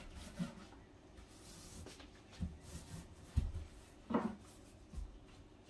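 Soft rubbing strokes of paint being applied to a wooden kitchen cabinet, with a few dull low thumps and a short hum-like vocal sound about four seconds in.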